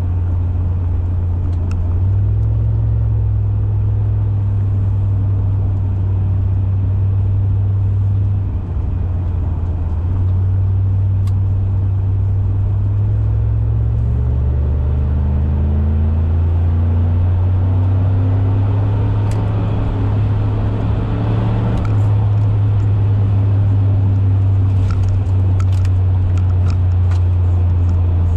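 Cabin drone of a 2002 Cadillac DeVille's Northstar V8 through a Thrush performance exhaust with the resonator deleted, while driving. The low drone is steady, climbs in pitch through the middle as the car speeds up, then settles.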